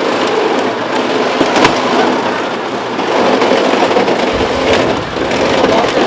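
Vehicle extrication on a wrecked SUV: a steady, noisy machine din with sharp cracks about a second and a half in and again near five seconds.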